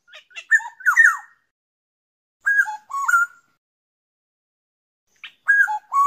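Black-naped oriole singing: three short whistled phrases, each a few notes that drop and then rise, about two and a half seconds apart.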